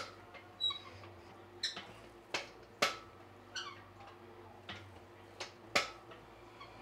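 Metal gym equipment clinking and knocking: weight plates and the hamstring curl machine's metal parts knocking together as it is worked. About eight sharp clinks come at uneven intervals, some with a brief ring.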